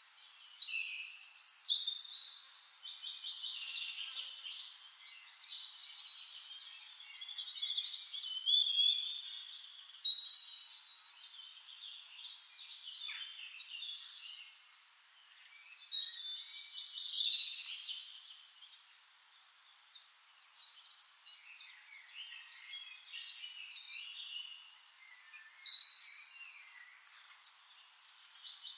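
Several songbirds singing at once, overlapping whistles, trills and chirps. The song swells loudest about two seconds in, around eight to ten seconds, at sixteen to eighteen seconds and again near twenty-six seconds.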